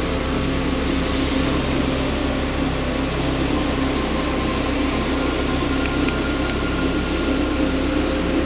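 A machine running steadily: an even hiss over a constant hum, with a low pulsing drone underneath.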